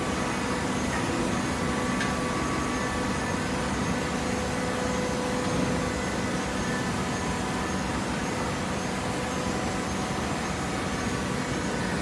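Hydraulic horizontal baler running, a steady machine hum from its motor and hydraulic pump with several held tones in it.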